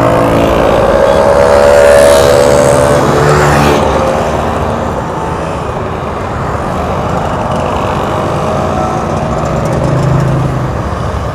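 A procession of motorcycles and scooters riding past close by, engines running in a steady stream, loudest about two seconds in as the nearest ones pass, then easing off before another swell near the end.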